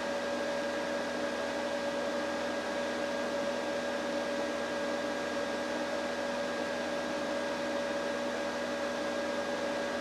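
HP Pavilion desktop PC's cooling fans, chiefly its stock 3-pin case fan, running at full speed: a steady, crazy loud rushing drone with a constant hum tone in it. The owner thinks the fans run flat out because the new motherboard does not slow these 3-pin fans, though he can't confirm it.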